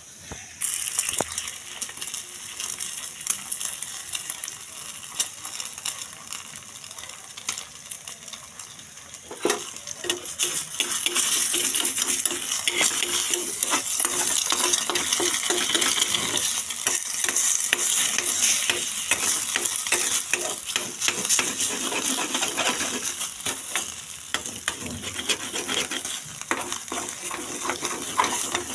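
Eggs frying in hot oil in a metal pan, sizzling, with a steel spoon scraping and clinking against the pan as the eggs are stirred and broken up. The sizzle is lighter at first and grows louder about ten seconds in, as the eggs go into the oil.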